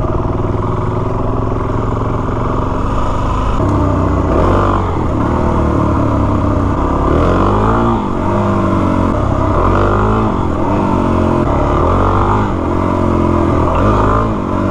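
Suzuki DR-Z400S single-cylinder motorcycle engine being ridden. It runs steadily at first, then from about four seconds in it revs up and drops back again and again.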